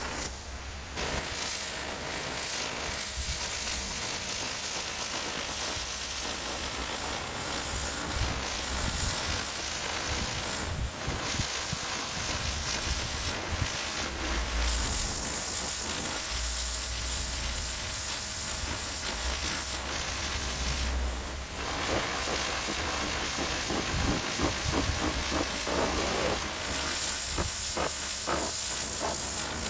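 Pressure washer jet spraying steadily, a loud hiss of high-pressure water blasting moss off a garage roof, with a low rumble coming and going underneath.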